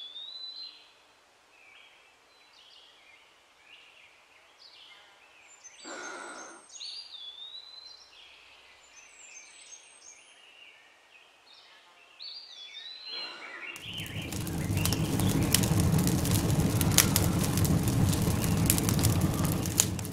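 Birds chirping, short rising and falling calls. About two-thirds of the way in, a much louder crackling hiss of noise starts and holds for about six seconds, cutting off suddenly at the end.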